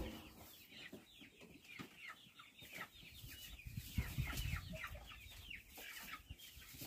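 A flock of Cornish cross meat chickens clucking and peeping, many short falling calls every second. A dull bump about four seconds in.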